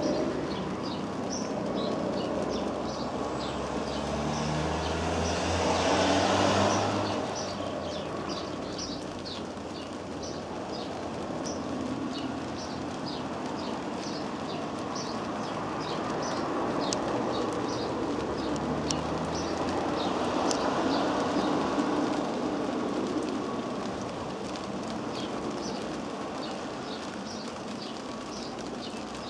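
MD 902 Explorer police helicopter flying overhead: a steady rotor and turbine rumble that swells and fades as it circles, loudest about six seconds in. Small birds chirp rapidly over it.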